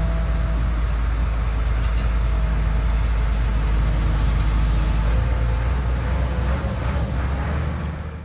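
A vehicle engine running steadily with a deep, even hum, cutting off suddenly at the end.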